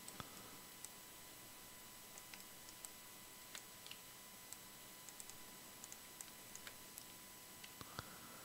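Near silence broken by scattered, irregular faint clicks of a computer mouse and keyboard, the sharpest about eight seconds in.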